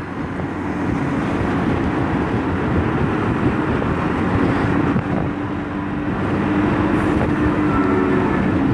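Yamaha XMAX 250 maxi-scooter's single-cylinder engine running steadily at cruising speed, a low buzzing hum under a rush of wind and road noise.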